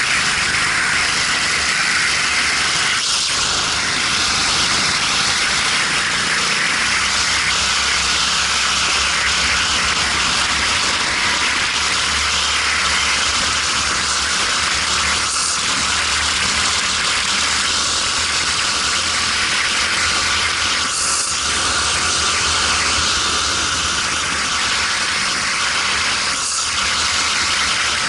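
A racing kart engine running under load, its note rising and falling with the throttle, under a steady loud rush of wind noise on the helmet-mounted microphone.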